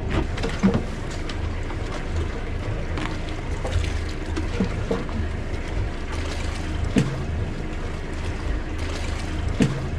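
Sailboat's inboard diesel engine running steadily at low revs while manoeuvring astern, with a few sharp knocks, the clearest about seven seconds in and again near the end.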